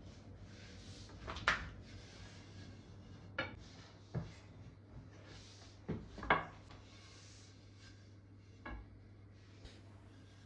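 Long thin wooden rolling pin (oklava) rolling out a thin sheet of dough on a countertop: quiet rubbing and rolling, with about six light wooden knocks spread through it.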